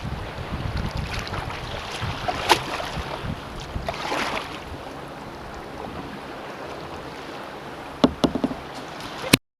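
Kayak on open water: water splashing and lapping around the hull, with wind buffeting the microphone. A few sharp knocks come near the end, then the sound cuts off suddenly.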